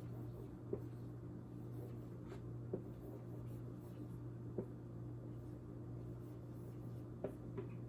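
Steady low hum with a handful of faint, short taps or clicks, one every second or two.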